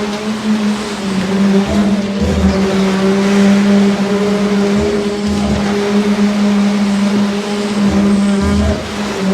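Diesel engine of concrete-pouring machinery, most likely a concrete pump, running at a steady speed with a constant drone, while low thuds come in pairs every two to three seconds.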